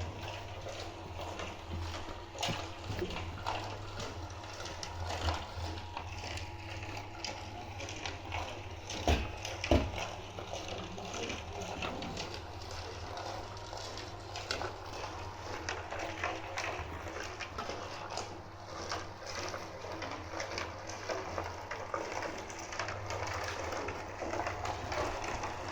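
Machinery at a concrete pour running with a steady low hum under irregular clatter and knocks, two louder knocks coming close together about nine to ten seconds in.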